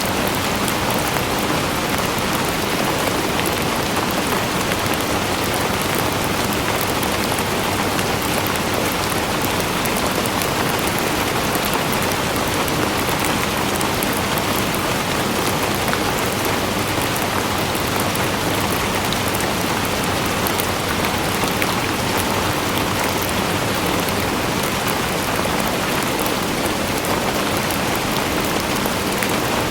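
Steady, heavy rain falling and pattering on a surface, with many fine drop impacts and no pauses or changes.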